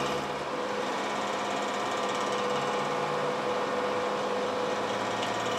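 Steady mechanical hum of a small motor or fan running, unchanging, with several fixed tones.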